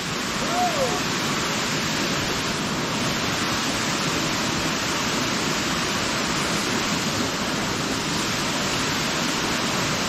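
Waterfall pouring down a rock face into a plunge pool: a steady, unbroken rush of falling water.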